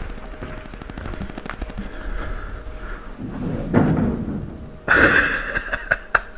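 A basement door being tried from outside: handle and door rattling and banging, with a sudden loud burst about five seconds in followed by a quick run of sharp knocks.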